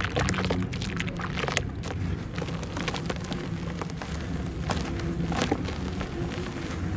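Hands crushing a block of wet, dusty dirt in a basin of foamy water: water sloshing while crumbs and chunks drop back into it with many small, irregular splashes and crackles.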